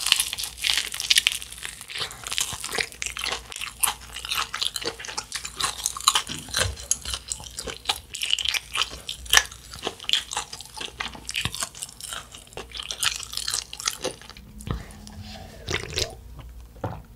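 Close-miked biting, crunching and chewing of a crispy fried Korean corn dog, with many sharp crackles of the batter, followed by chewing of chewy tteokbokki rice cakes. Gulps from a canned drink near the end.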